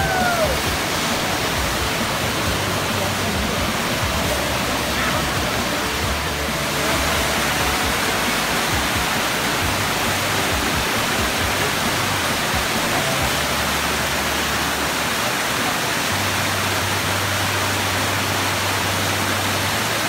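Waterfall rushing steadily, white water pouring down a rock chute into a pool.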